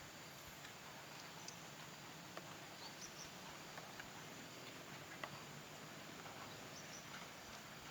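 Faint, steady hiss of rain, with a few scattered small ticks.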